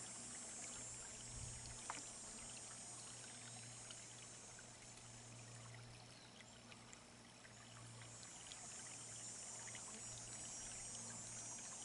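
Shallow, low brook trickling faintly over a stony, gravelly bed: a soft, steady wash of running water.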